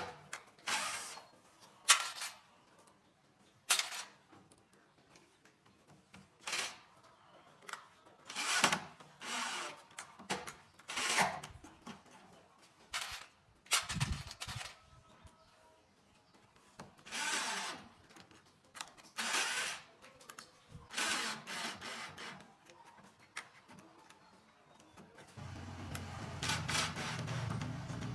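Woodworking with tools: a string of short, noisy bursts a second or two apart, then a power tool's motor running steadily near the end.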